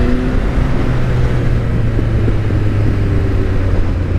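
A Suzuki motorcycle being ridden: a steady, loud low rumble of engine and wind rushing over the microphone, with the engine note rising under acceleration right at the start and then settling.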